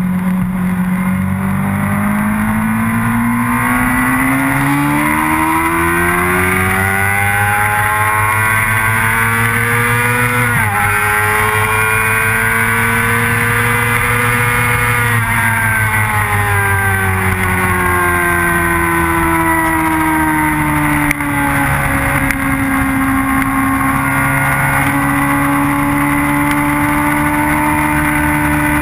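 Motorcycle engine heard up close from an onboard camera: its pitch climbs steadily under acceleration for about ten seconds, drops sharply at a gear change, rises briefly again, then falls away as the bike slows, with a brief break about two-thirds of the way in, and holds steady near the end.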